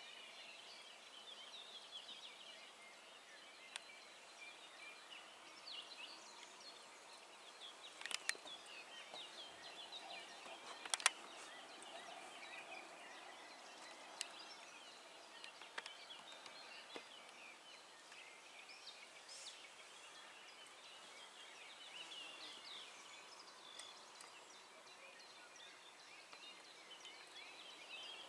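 Faint chorus of songbirds, many short chirps and calls overlapping throughout, with a few sharp clicks, the loudest about 8 and 11 seconds in.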